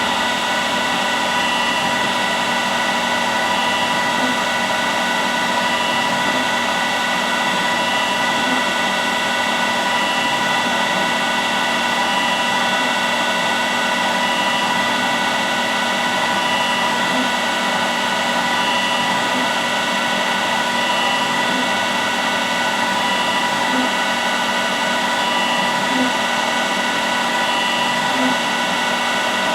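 Haas EC-1600 horizontal machining center running, a steady mechanical whine made of several fixed tones over a motor-and-fan hum, with faint soft ticks every couple of seconds.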